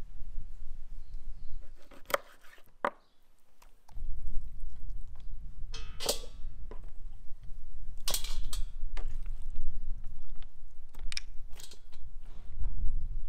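Raw quail being handled and set into a perforated stainless steel colander: a scattering of knocks and metallic clinks, the loudest, ringing one about six seconds in, over a low rumble.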